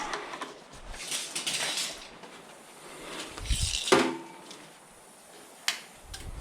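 Metal tools and car parts being handled, scraping and clattering, with one ringing metal clank about four seconds in and a sharp click near the end.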